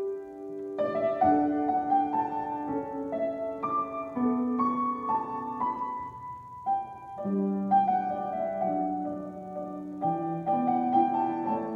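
Solo piano improvisation: a slow melody over held chords, the notes left ringing into one another.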